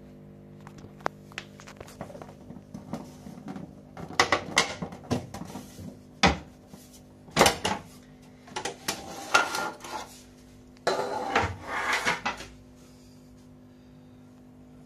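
Plastic clicking, knocking and rattling as the washing machine's bottom front cover is pulled off to reach the drain pump, in irregular bursts from about four seconds in to about twelve and a half seconds. A steady low hum runs underneath.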